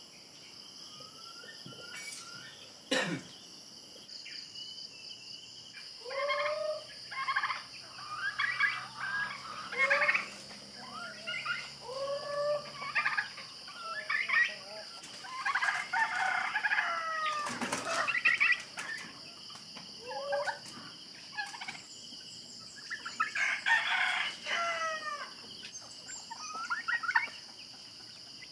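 Domestic fowl calling: a run of short clucks and calls, thickest in the second half, over a steady high insect drone. Two sharp clicks cut through, about three seconds in and again midway.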